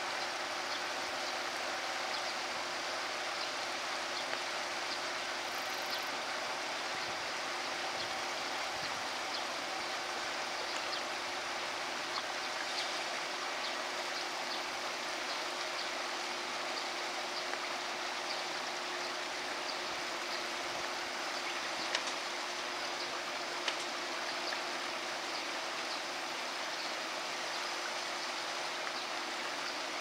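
Shallow stream running steadily over rocks, with two faint clicks in the second half.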